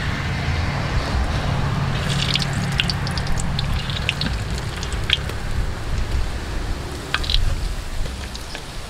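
Taro cakes deep-frying in hot oil in a wok, a steady sizzle with scattered sharp pops.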